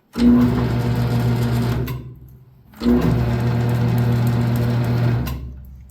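South Bend 9-inch Model A lathe run under its 1/2 horsepower single-phase motor: switched on with a steady hum for about two seconds, switched off, then started again for about two and a half seconds before running down, showing the forward and reverse switch.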